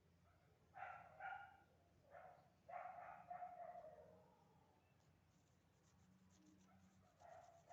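A cat meowing, faint: a few short meows about a second in, a longer meow that falls in pitch about three seconds in, and another near the end.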